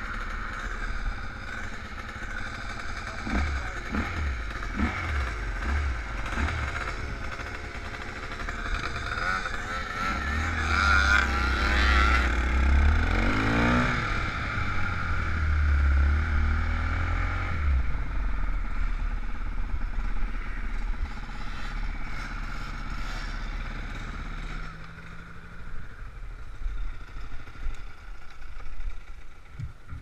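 Trail motorcycle engines running as the bikes ride along a road, rising and falling in pitch as they rev and change speed through the middle, then settling quieter near the end.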